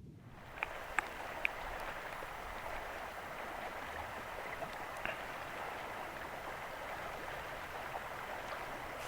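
A steady rushing noise with a few light ticks in the first second and a half.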